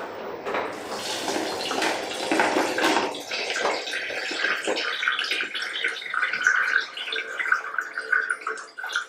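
Wet pounded palm-nut pulp and hot water sloshing and splashing as they are poured from one plastic bowl into another over a pot, with hands squeezing the pulp. This is the washing-out of the palm-fruit juice for banga soup.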